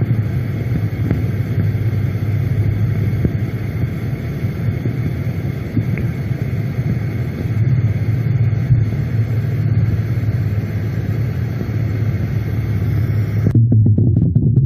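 Steady low rumble with a hiss above it, recorded at a 50 mm cased borehole and taken by the recorders for underground tunnel-digging machinery. Near the end the hiss cuts off abruptly while the low rumble carries on.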